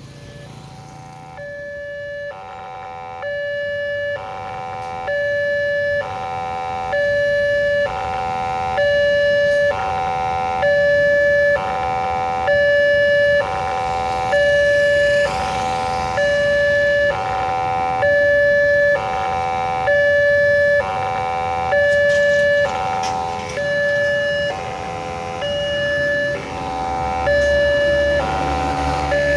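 Electronic railway level-crossing siren sounding a two-tone alternating alarm that switches pitch about once a second, warning of an approaching train. Its tone is hoarse. It starts about a second and a half in and grows louder over the first several seconds, and a low rumble rises near the end.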